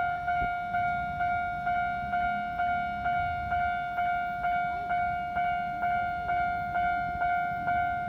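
Japanese railway level-crossing warning bell ringing: an even, repeating clang of about two strokes a second, each stroke fading before the next.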